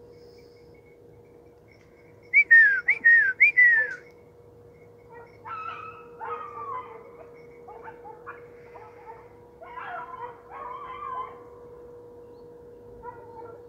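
Distant animal yelps: four loud, short calls in quick succession, each falling in pitch, followed by a run of quieter, lower falling calls.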